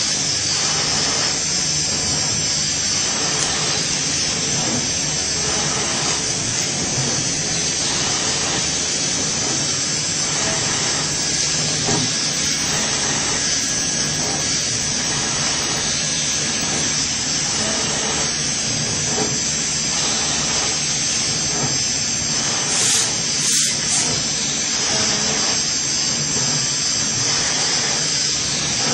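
High-speed twin-spindle CNC plate drilling machine running, its spindles drilling holes in a metal plate under coolant spray: a steady high whine and hiss with a faint uneven pulsing. Two short, louder hisses come about three-quarters of the way through.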